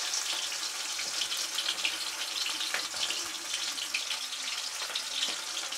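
Pieces of bata fish frying in hot oil in a kadhai: a steady sizzling hiss with small crackles and pops.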